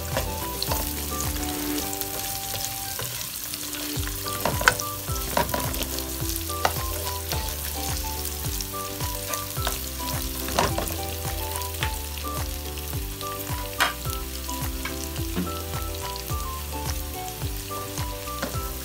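Chopped garlic and red onion sizzling in hot oil in a nonstick wok as they are sautéed, with a spatula stirring them and now and then clicking and scraping against the pan.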